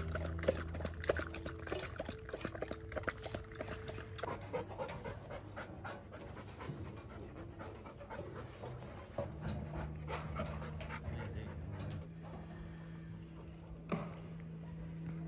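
Bernese mountain dog panting in quick, irregular breaths, over soft background music of held notes.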